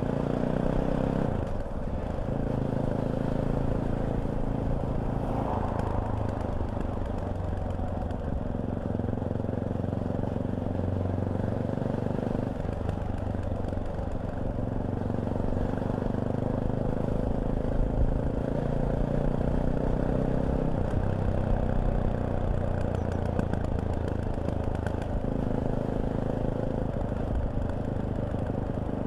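Fantic Caballero 500's single-cylinder engine running under way on the road. The engine note shifts a few times as the rider works the throttle and gears.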